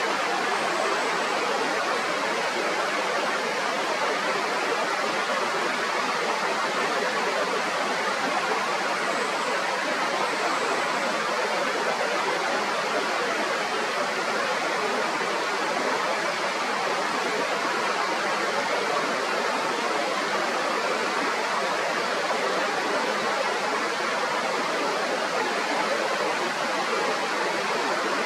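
Mountain river rushing: a steady, unbroken sound of flowing water.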